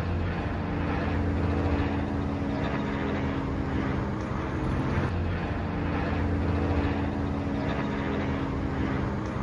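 Street ambience with a steady, low engine drone from traffic or an idling vehicle under an even hiss.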